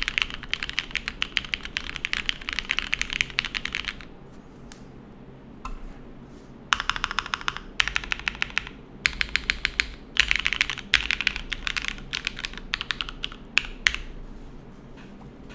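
Typing on a Matrix Faukwaa MY-2K TKL mechanical keyboard with broken-in, lubed Cherry MX Black linear switches in a full aluminium plate, undampened, with GMK keycaps. A fast run of keystrokes gives way about four seconds in to a pause with a few single key presses, then several quick bursts of typing follow, thinning to scattered presses near the end.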